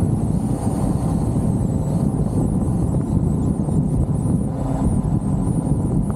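Steady rumble of a topless Jeep driving, its road and engine noise mixed with wind buffeting the open-air microphone.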